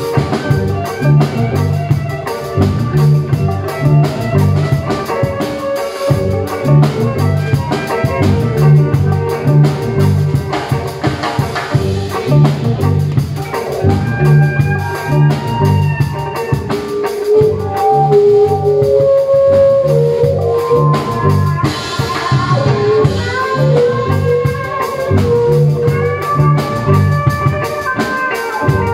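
Live instrumental music: a drum kit keeps a steady beat under an amplified violin, bowed through effects pedals, playing a melody of held and sliding notes.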